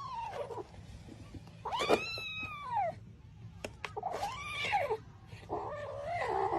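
A cat meowing four times in long, drawn-out calls, each rising and then falling in pitch, with a few faint clicks between them.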